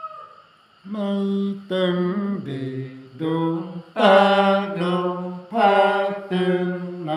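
Male voices chanting a song, phrases of held notes about a second long separated by short breaths, starting about a second in after a brief pause.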